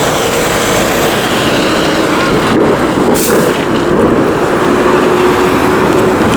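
Loud, steady city street traffic noise, with a faint held tone from a passing vehicle in the second half.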